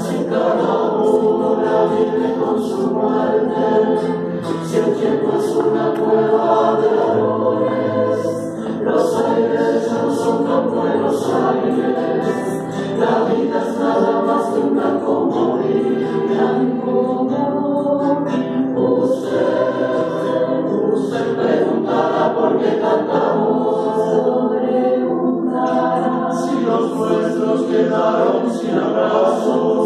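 Mixed choir of men's and women's voices singing, accompanied by an acoustic guitar.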